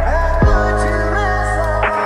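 Background music with held chords over a deep bass, a new bass note coming in about half a second in.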